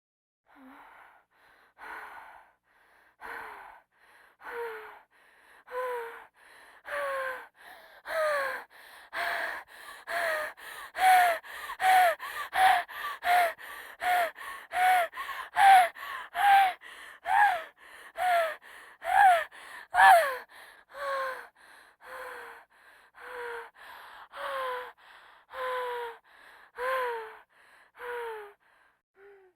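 A woman's laboured, gasping breaths with a wheeze that falls in pitch in each one, the sound of an asthma attack or breathing distress. The breaths start faint and slow, grow louder and quicker to about two a second midway, then slow and fade again.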